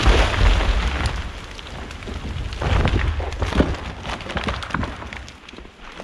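A large conifer crashing down after felling. There are many sharp snaps and cracks of breaking branches and heavy thuds of the trunk hitting the ground, loudest right at the start and again about three seconds in, then dying away.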